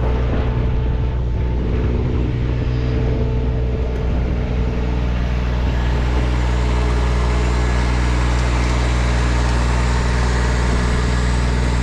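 Engine of a tar crack-sealing machine running steadily. A steady rushing hiss joins it about halfway through.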